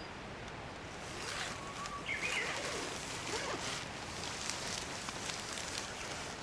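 Outdoor camp ambience: a steady hiss with scattered faint crackles and clicks from about a second in, and a brief high tone around two seconds in.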